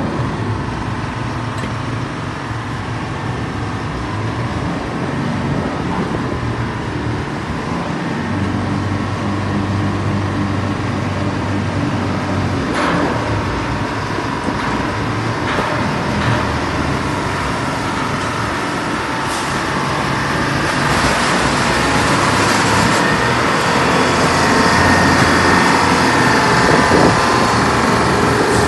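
NCK 605 dragline crane running steadily as it winches its bucket in through the water, with a few brief sharp sounds along the way. The machine gets louder and busier in the last several seconds as the loaded bucket is hoisted clear.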